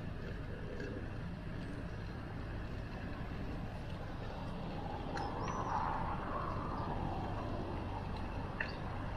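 Street traffic and riding noise from a moving bicycle: a steady low rumble that swells about five to seven seconds in.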